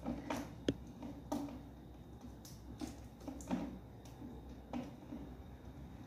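Faint scattered plastic clicks and knocks as a desk fan's propeller is twisted by hand onto its hub until it locks in place, with one sharper click about a second in.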